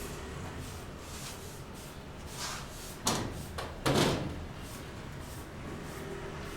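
Two sharp knocks a little under a second apart, about halfway through, the second one louder, over a steady low hum.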